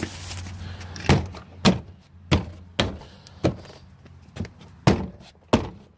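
Plastic interior door trim panel being struck by hand against the door to snap its retaining clips into place: a series of about eight sharp thumps, irregularly spaced.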